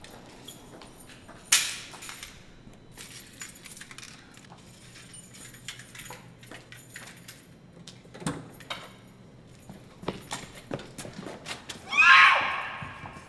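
Footsteps clicking on the concrete floor of a parking garage, with a sharp knock about a second and a half in and a short high-pitched sound near the end.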